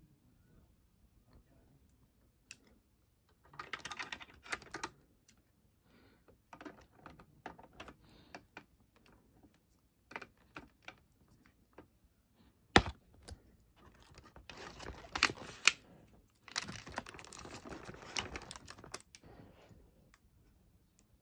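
Cardboard display boxes of diecast model cars being handled. Scattered light clicks and taps, with stretches of cardboard rustling and scraping, and one sharp knock about 13 seconds in that is the loudest sound.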